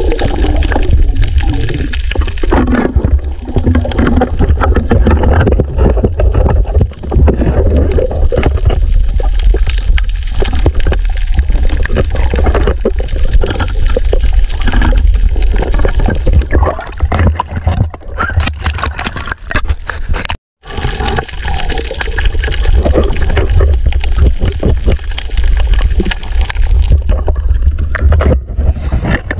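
Muffled rushing and gurgling of water around a submerged camera while swimming, with many small knocks and clicks throughout. The sound cuts out for a moment about two-thirds of the way through.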